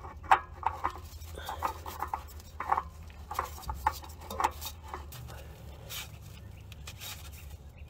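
Short scraping clicks, a few a second, from an oil filter being screwed on by hand during an oil change. They fade to faint handling noise about halfway through.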